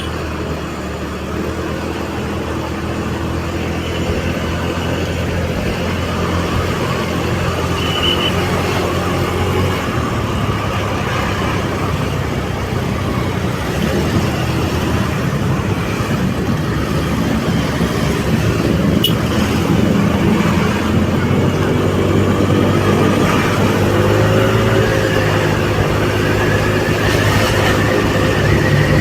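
Engine and road noise of a vehicle driving in traffic, a steady hum that grows louder toward the end.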